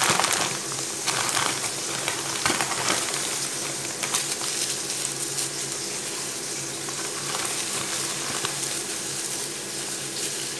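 A clear plastic bag crinkling and dried taro leaves crackling as they are shaken out of the bag into a pot of coconut milk, over a steady hiss. The crackling is densest in the first couple of seconds.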